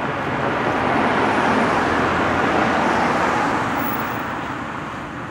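A car driving past close by: tyre and road noise swelling to a peak and then fading as it goes away.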